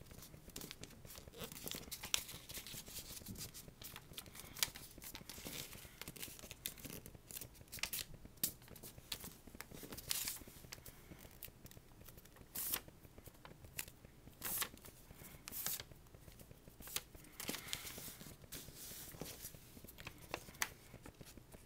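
Sheet of paper being handled and folded: irregular crisp rustles, creases and sliding scrapes of the paper under the fingers, with a few longer swishes.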